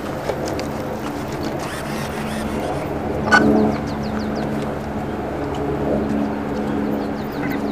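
Electric motor and pusher propeller of a Combatwing XR flying wing running at a steady pitch while the wing is held ready for a hand launch, with a brief louder sound about three seconds in.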